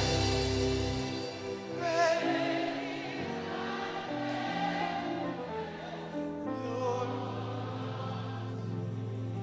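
Slow worship music with no words: sustained chords under a held melody that wavers with vibrato, and a low bass note coming in about two-thirds of the way through.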